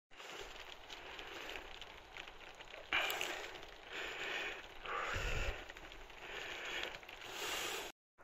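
Footsteps and clothing rustle of hikers climbing a wet, rocky mountain path: a crackling, scuffing noise that swells in bursts about a second apart, with a low thump about five seconds in.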